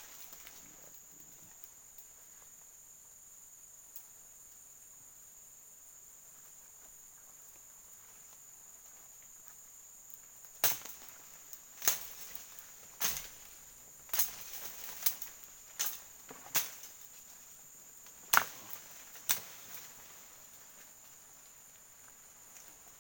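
A steady high insect drone, then from about ten seconds in a run of about ten sharp knocks roughly a second apart: a blade chopping at the branch that holds a wild bee nest.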